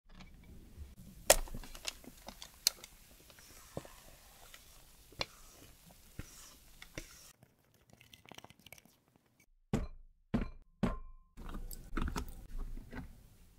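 Cake batter poured from a stainless steel bowl into a parchment-lined square pan, with scattered small clicks and scrapes of the bowl and spatula. About ten seconds in come three loud sharp knocks, and near the end a cluster of clicks as metal binder clips on the pan's edges are handled.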